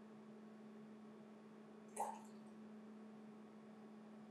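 Near silence over a steady low hum, with one brief soft liquid sound about two seconds in as liquor is poured from a small glass bottle into a steel jigger.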